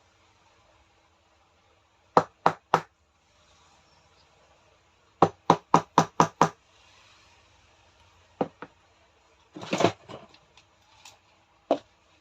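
Hammer tapping parts into place during a rotary hammer repair, likely driving a bearing home: three quick strikes, then a run of five, then a few scattered lighter knocks and a short scraping rattle near the end.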